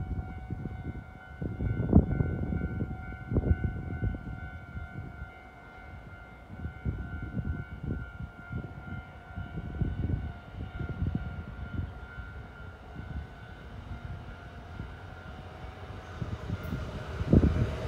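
A steady, siren-like high tone sounds throughout and fades toward the end. Uneven gusts of wind rumble on the microphone. A Kintetsu electric train's running noise swells in the last second or so as it reaches the camera.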